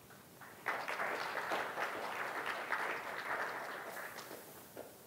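Audience applauding, a dense patter of many hands starting about a second in and dying away over the last second or so.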